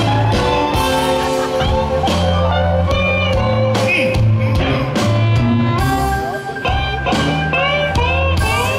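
Electric blues band playing live: electric guitar and drums, with an amplified harmonica bending notes up and down.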